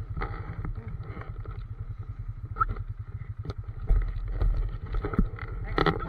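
ATV engine running at low speed, a steady rapid low chugging, as the quad wades up a shallow creek, with water splashing around the tires and a few knocks.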